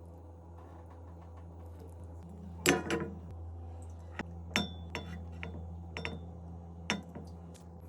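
Kitchenware clinking and knocking: a handful of sharp clinks of dishes and utensils, the loudest about three seconds in, over a steady low hum.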